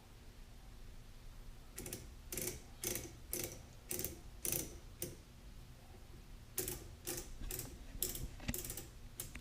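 Rasping ratchet-like clicks from a light mount being turned into position, about two a second, in two runs with a short pause around the middle.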